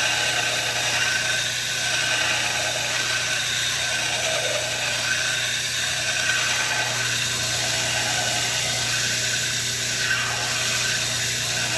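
Belt grinder running with a steel pot hook pressed against the belt, grinding a flat into the rod: a steady grinding hiss over the motor's low hum.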